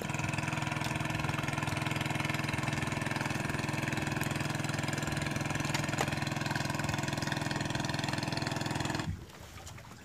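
An engine running steadily at an even, unchanging pitch, cutting off suddenly about nine seconds in, with a few faint clicks over it.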